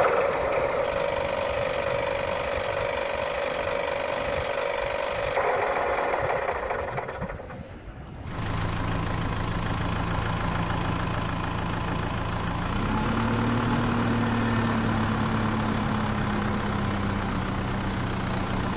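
Engine sound, most likely laid over the picture, since toy trailers have no motor. A steady running note fades out about eight seconds in. A lower idling engine follows, its pitch rising a little around thirteen seconds in.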